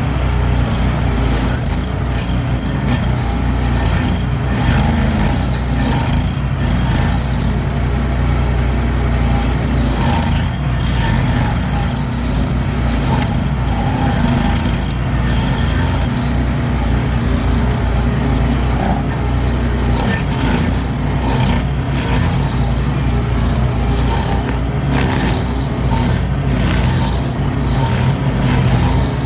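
Lawn mower engine running steadily under load while cutting grass, with scattered light ticks and scrapes over the engine.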